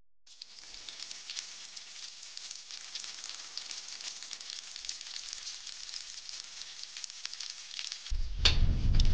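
Beef loin sizzling as it sears in a frying pan, a steady crackling hiss. Near the end a much louder low rumble sets in, with one sharp crack.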